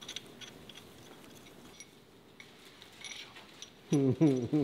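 Steel cylinder head bolts clinking lightly against each other and against an iron engine block as they are set into the bolt holes by hand. A voice briefly takes over near the end and is the loudest sound.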